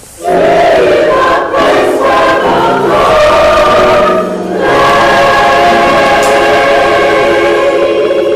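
Gospel choir singing together in held chords. The choir comes in all at once out of a hush, breaks briefly between phrases, and then holds one long sustained chord through the second half.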